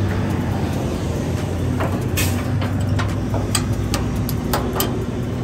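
Diesel semi-truck engine idling with a steady low hum, with a scatter of short sharp clicks and knocks over it from about two seconds in.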